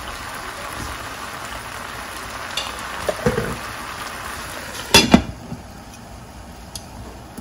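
Curry chicken sizzling in an uncovered pot, with a few light knocks a little after three seconds in. About five seconds in a glass lid clatters down onto the pot, and the sizzle drops to a quieter, muffled simmer.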